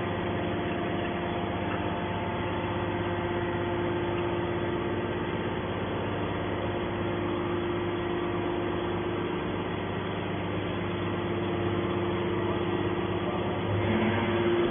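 Hydraulic scrap metal baler running steadily: the electric motor and hydraulic pump give an even hum with a fixed pitch.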